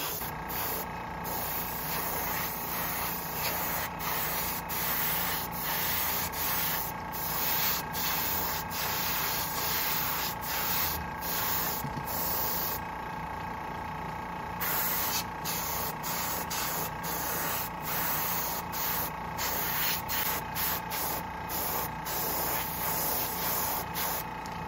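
Airbrush spraying paint in short on-off bursts as the trigger is worked, with a longer pause of about two seconds near the middle. A steady faint hum runs underneath.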